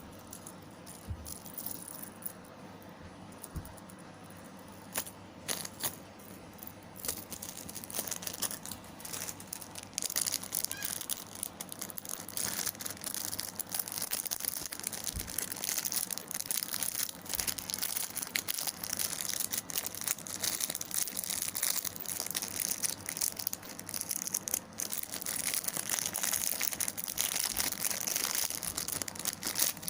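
Soft-lure packaging crinkling and rustling as it is handled and opened, with small clicks and rattles. The handling is sparse at first and becomes busy and continuous about seven seconds in.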